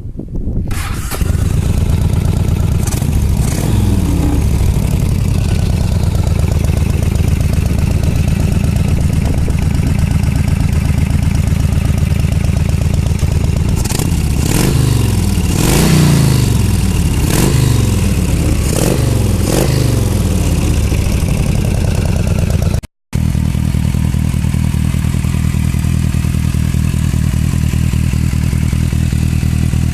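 Motorcycle engine starting and running, with the throttle blipped several times so the revs rise and fall, then idling steadily after a brief cut.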